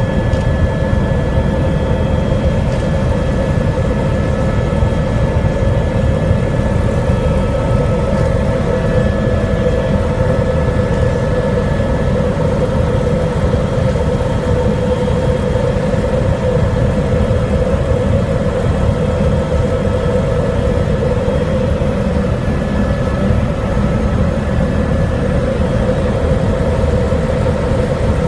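Helicopter in steady flight, heard from inside the cabin: engine and rotor running as a loud, even low rumble with a steady hum and thin whining tones above it.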